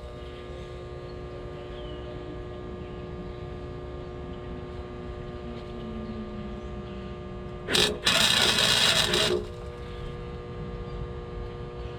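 Welder humming steadily, then one weld burst of about a second and a half near eight seconds in: the arc starts with a short stutter, then crackles steadily as a bead is laid on exhaust pipe.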